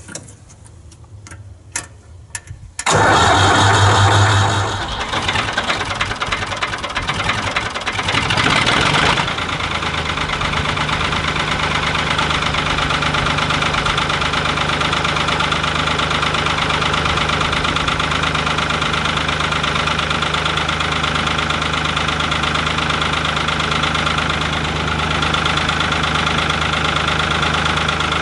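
Ford 3000 tractor's three-cylinder diesel engine cold-started with no ether and no heater plugs. A few clicks come first, then about three seconds in the engine cranks and catches. It runs unevenly, with revs rising briefly about nine seconds in, then settles into a steady idle.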